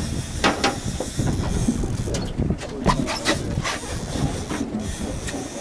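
Steady low rumble and hiss of wind and sea on a fishing boat's open deck, with irregular knocks and clicks scattered through it.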